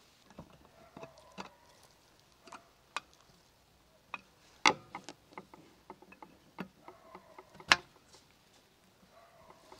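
Scattered metallic clicks and light knocks from a screwdriver turning the set screw of a steel spit fork and the fork being worked onto the spit rod. Two sharper metal clinks, one about halfway through and one near the end, stand out.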